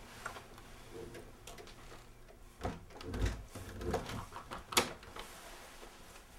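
Scattered knocks, rustles and clicks of someone handling things in a small room, with a dull thump about three seconds in and a sharp click just before five seconds.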